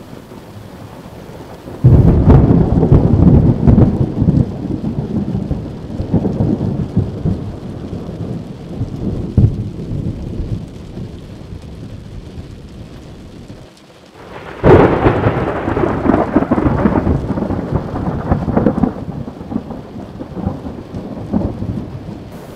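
Thunder: two claps, one about two seconds in and one past the middle, each starting suddenly and rumbling on for several seconds as it fades. Rain falls steadily between them.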